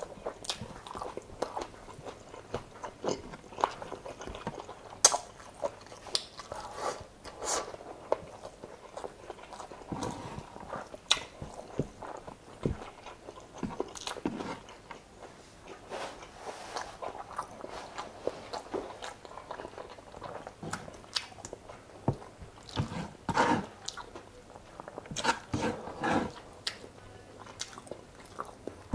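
Close-miked chewing and lip smacking of a person eating chicken adobo and rice by hand, with many short, irregular wet clicks; a little louder for a few seconds near the end.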